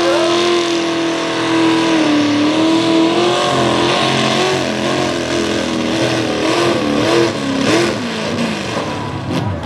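V8 engine of a hot rod pulling tractor running at high revs under load as it drags the weight transfer sled, its pitch wavering as it bogs and picks up, then falling away near the end as the revs drop.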